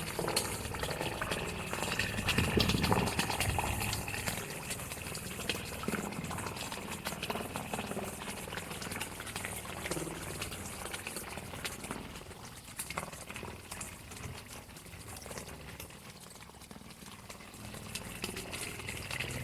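Water from an underground spring gushing and splashing down inside a 22-metre mini drilled well, a continuous irregular watery rush that swells briefly a couple of seconds in.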